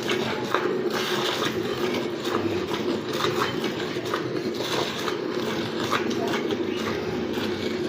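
A cow being milked by hand: repeated squirts of milk streaming into a pail.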